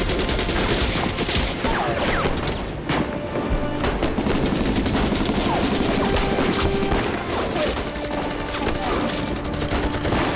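Dense battle gunfire: rifles and machine guns firing in rapid, overlapping shots over background music.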